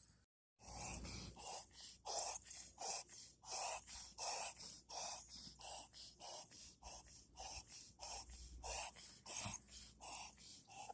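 Chihuahua reverse sneezing: a rapid, unbroken run of short, noisy inward breaths, about three a second, starting about half a second in.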